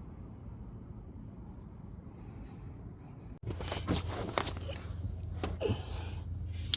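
Faint steady low hum, then after an abrupt cut a few sharp clicks and knocks with some rustling over a louder low hum.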